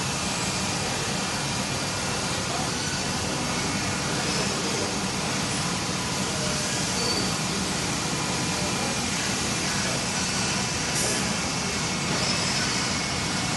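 Steady running noise of a Hermle C 30 U 5-axis CNC machining center at work, its enclosure full of coolant mist, with a few faint steady whines in the machine-shop noise. A brief high hiss comes near the end.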